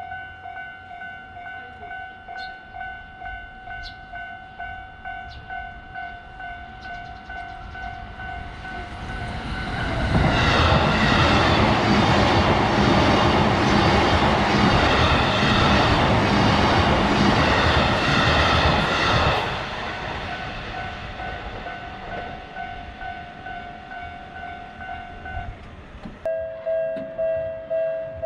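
Railroad crossing warning bell ringing in a steady repeating rhythm, drowned out for about ten seconds in the middle by the loud noise of a passing train. After the train the bell rings on, and near the end a second, lower-pitched crossing bell takes over.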